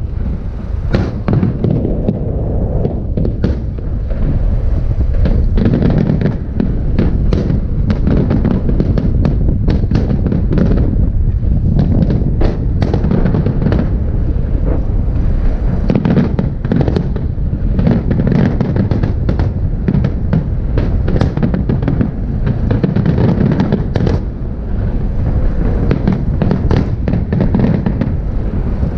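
Fireworks display with many aerial shells bursting almost without pause: a dense, continuous crackling with sharp pops over a steady low rumble.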